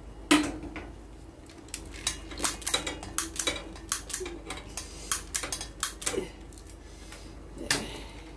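Gas stove's spark igniter clicking rapidly, about four clicks a second, as a burner is lit. A metal pot knocks and rings briefly on the stove grate near the start and again near the end.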